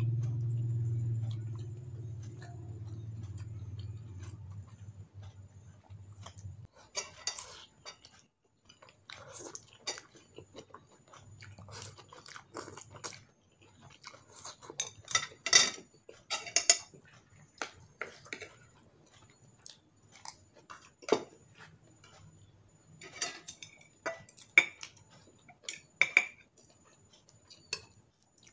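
Someone eating instant noodles: chewing and slurping, with chopsticks and a spoon clicking against a glass bowl and plate in short sharp taps, the loudest a little past halfway. A low steady hum runs for the first six seconds or so.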